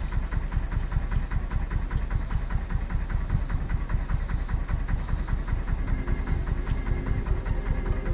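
Small boat's motor running slowly at low throttle, a steady rapid low pulsing. A higher steady hum joins about six seconds in.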